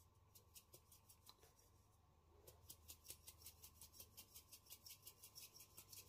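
Faint, rapid high-pitched clicking in near silence, about six clicks a second: a short, sparse run near the start, then a longer, louder run from about halfway on.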